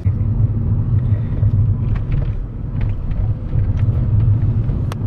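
Car driving, heard from inside the cabin: a steady, heavy low rumble of road and tyre noise. A few faint ticks run through it, and a sharp click comes near the end.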